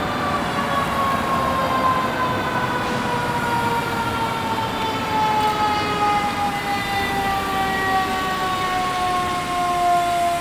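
Fire engine's mechanical siren, a Federal Q type, winding down: one long wail that falls slowly and steadily in pitch, over the hiss of road traffic.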